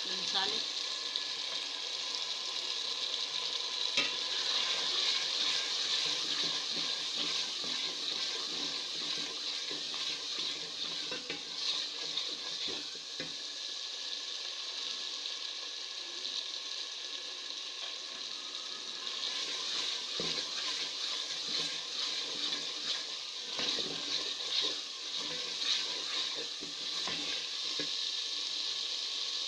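Onion, tomato and ginger-garlic masala sizzling in a metal pot as its water cooks off, stirred with a wooden spoon that scrapes and knocks against the pot now and then, more often near the end.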